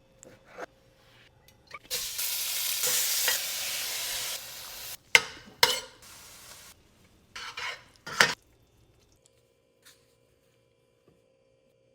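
Food sizzling in a frying pan in a steady hiss for a few seconds, broken by sharp knocks of a utensil against the pan as it is stirred.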